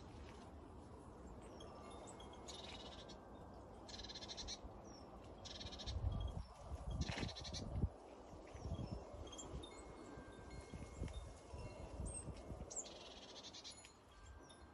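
Garden ambience: birds calling in short bursts, about six times, with smaller chirps between them. Low rumbles on the microphone, loudest a little past the middle, are the loudest sound.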